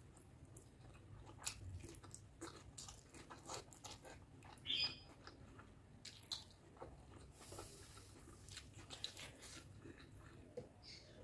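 Close-up mouth sounds of a person chewing a mouthful of rice and mutton curry: soft, irregular wet clicks and smacks, with one louder click a little under five seconds in.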